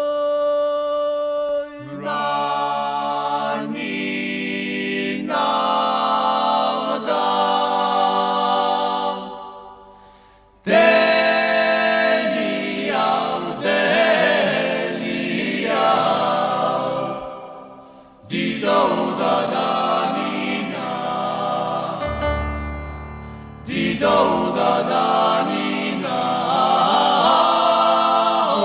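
Choral music: a choir singing held chords in several voices, fading out and starting again twice.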